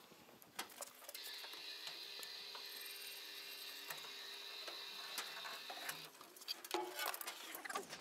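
A hoist lifting a timber bunk frame on a strap: a faint steady mechanical whir with scattered clicks, then knocks near the end as the frame is handled over the rail.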